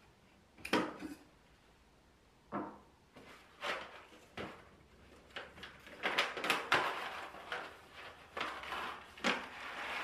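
Hands handling a espresso machine and a paper bag: a string of separate knocks and clicks, with a denser patch of clicking and paper rustling in the middle.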